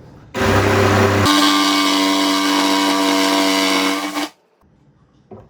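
A power tool's motor runs steadily for about four seconds, starting and stopping abruptly. About a second in, its pitch shifts up to a brighter, steadier whine.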